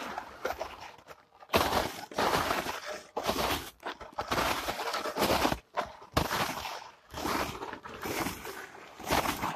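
Footsteps crunching through deep snow at a walking pace, an uneven run of crunches about one every half second to second.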